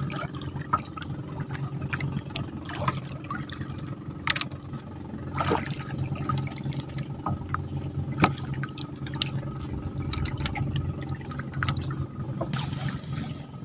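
Water trickling and dripping, with scattered small knocks and clicks over a steady low hum.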